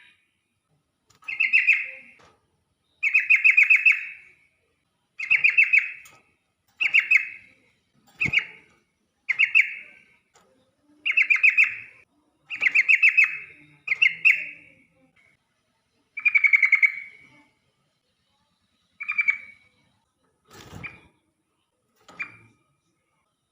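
Yellow-vented bulbul singing persistently: a run of short, bubbly warbled phrases, one every second or two, a few of them fainter near the end.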